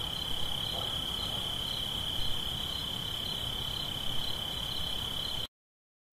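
Steady high-pitched insect trill, like a cricket, over a faint hiss; it cuts off suddenly near the end.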